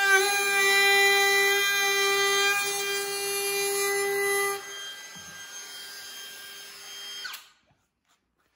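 DeWalt DCW600 20V cordless compact router running at its highest speed setting, a steady high whine, its decorative bit cutting a profile along the edge of a wooden board. About four and a half seconds in the whine becomes quieter. Near the end the motor is switched off and winds down, falling in pitch.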